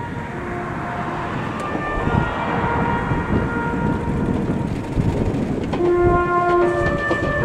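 Meitetsu 2000 series μSKY electric train approaching, its musical horn playing a stepped melody of held notes over the train's running noise, which grows louder as it nears.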